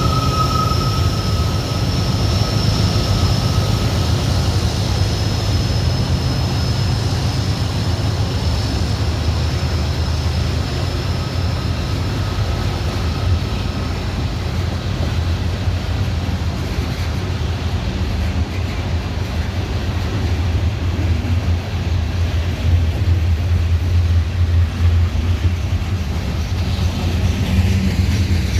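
Loaded CSX coal train rolling past: a steady heavy rumble of hopper cars on the rails, growing louder in the last third. A thin high whine rides over it and fades away about halfway through.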